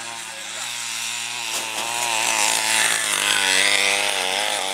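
Motor of a greyhound track's mechanical lure running, an engine-like buzz that wavers in pitch and grows louder as the lure passes, loudest about three to four seconds in.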